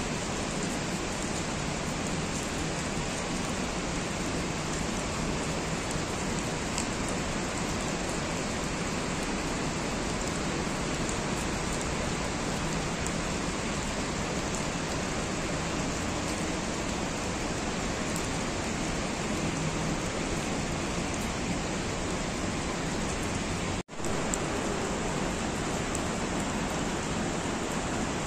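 Steady rain falling, an even hiss with faint scattered drop ticks; the sound cuts out for an instant about 24 seconds in.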